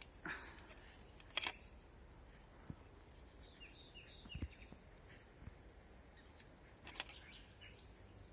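Faint outdoor ambience with small birds chirping in short, downward-sliding calls, broken by a few sharp clicks, the loudest about a second and a half in.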